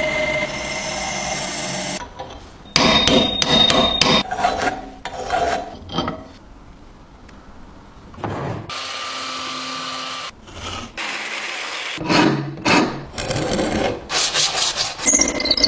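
Tools working the wood and metal parts of an antique fruit press: rasping, scraping and rubbing, with a few sharp knocks. The sounds come in short stretches that change abruptly every second or two.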